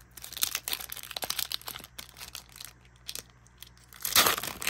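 Foil wrapper of a Pokémon card booster pack crinkling in the hands, with many small crackles, then torn open along its top edge in a louder rip about four seconds in.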